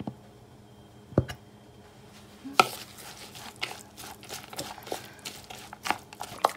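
Spatula stirring a chopped corn salad in a metal mixing bowl, knocking and scraping against the bowl several times a second from about two and a half seconds in. A single sharp click comes about a second in.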